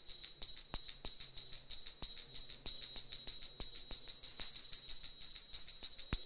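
Small hand bell rung continuously in fast, even strokes, about six or seven a second, each stroke ringing with a high, steady tone. It is the puja bell rung at the close of a food offering to thank the Lord for accepting it.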